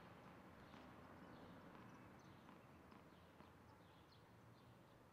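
Near silence: faint outdoor background hiss with a few faint short ticks.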